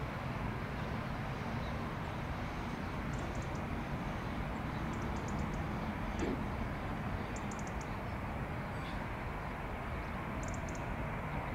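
Distant jet engines of an Airbus A319 on final approach: a steady low rumble that neither rises nor fades. A few faint, short, high chirps come in quick clusters several times over it.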